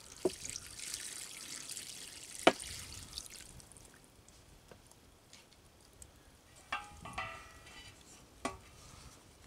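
Water poured from a plastic jug into a stainless steel stockpot of simmering corned beef: a steady splashing hiss for about three and a half seconds, with one sharp knock about two and a half seconds in. After the pour stops it is quieter, with a few light clicks and a brief squeak about seven seconds in.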